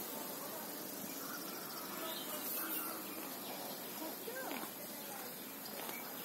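Outdoor garden ambience: a steady hiss with a few faint bird chirps.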